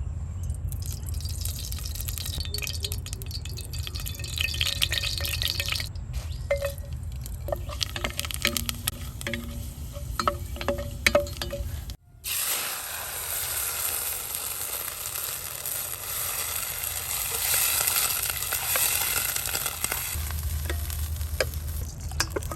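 Food frying in hot oil in a cooking pot, with a spoon stirring and scraping against the pot in quick clicks and scrapes. About twelve seconds in the sound cuts to a steady, louder sizzle.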